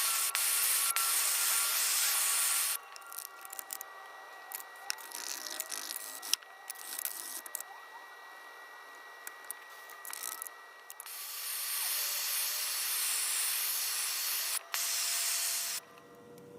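Two long hissing blasts of pressurized spray or air from a nozzle, the first stopping about three seconds in and the second starting around eleven seconds and cutting off near the end, used for cleaning lantern parts. Between the blasts there are light clicks and rubbing of small parts being handled.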